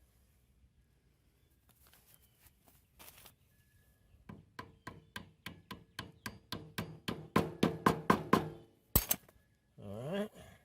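Rapid, even hammer taps on metal, about five a second and growing louder, driving a new axle bushing into place on a Craftsman riding mower, each tap ringing briefly; a single sharper knock follows.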